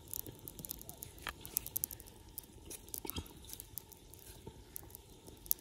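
Small knife slicing through a tomato held in the hand: irregular faint clicks and snips as it is cut into small pieces.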